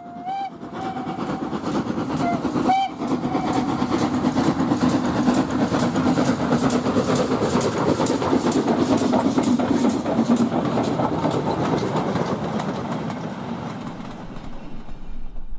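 A steam locomotive running past at speed: a few short whistle blasts in the first three seconds, then its exhaust beats and the wheels clattering over the rails in a quick, regular rhythm that eases off near the end.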